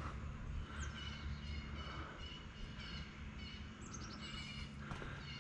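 Songbirds chirping and twittering: quick high falling chirps about a second in and again near four seconds, among repeated short high notes, over a low steady hum.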